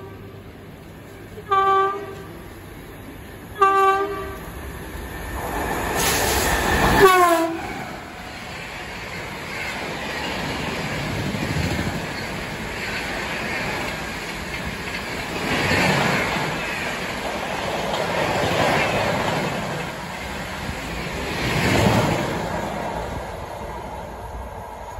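An Indian Railways WAP-7 electric locomotive sounds two short horn blasts. About seven seconds in it rushes past, its horn dropping in pitch as it goes by. The coaches of the express follow, rushing and clattering over the rails at speed, the noise swelling and fading every few seconds and trailing off near the end.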